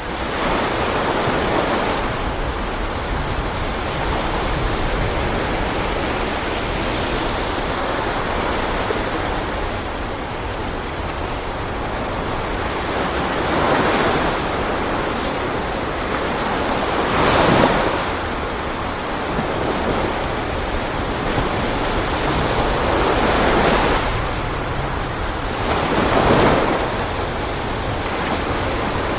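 Sea waves washing steadily, with louder swells every few seconds.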